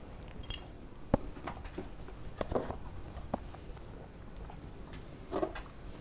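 Light clicks and knocks of chopsticks and tableware being handled at a table, over quiet room tone, with one sharp click about a second in.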